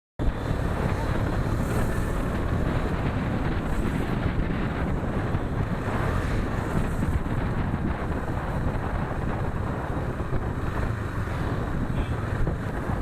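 Steady wind rush buffeting the microphone on a moving motorcycle, with a low road and engine rumble underneath; it cuts in suddenly just after the start.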